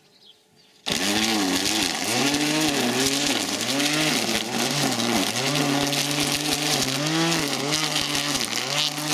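A grass trimmer switches on abruptly about a second in and runs as it cuts burdock weeds. Its motor pitch keeps dipping and recovering as the cutting head bogs in the stems.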